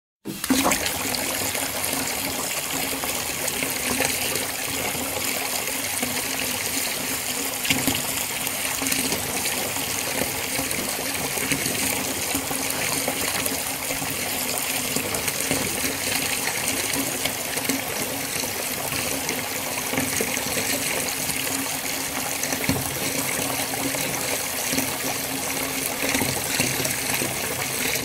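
A steady stream of water pouring and splashing into water, beginning abruptly and running evenly without a break.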